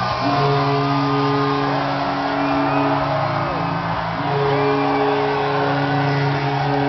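A cheering, shouting crowd, with a steady low pitched tone held for about four seconds that breaks off briefly and then is held again.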